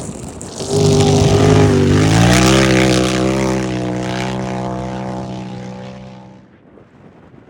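Off-road racing UTV engine passing close by at speed: a loud engine note comes up quickly, drops in pitch as the car goes past about two seconds in, then fades away over several seconds.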